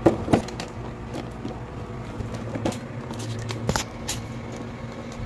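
A few sharp clicks and knocks of plastic toy parts and packaging being handled, the loudest two right at the start, over a steady low hum.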